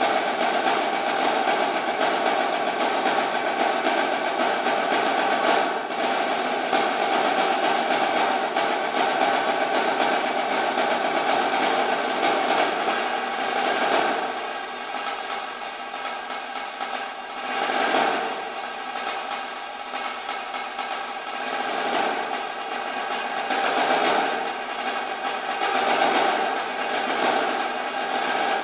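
Marching snare drum played with sticks in a fast, dense passage of rolls and rapid strokes. Loud for the first half, then softer from about halfway, with several short swells back up.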